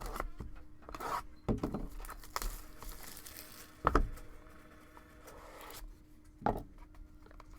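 Hockey card box being torn open: cardboard and plastic wrap tearing and crinkling, with a few sharp knocks as the box and packs are handled, the loudest about four seconds in.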